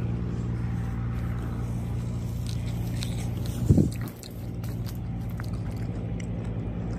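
Someone biting into and chewing a fresh peach close to the microphone, with small crunchy clicks, over a steady low engine hum. A short, loud voiced sound comes about three and a half seconds in, after which the hum drops away and returns quieter.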